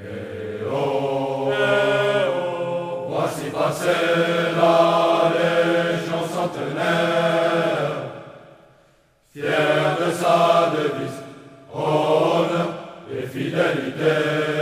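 Choral singing of slow, long-held notes: a long phrase that fades out about eight seconds in, then, after a brief pause, shorter phrases.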